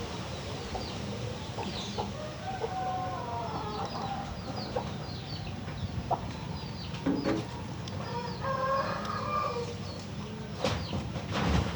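Chicken clucking in two stretches, about two and a half seconds in and again around eight seconds in, among many short high chirps. Two louder bumps come near the end.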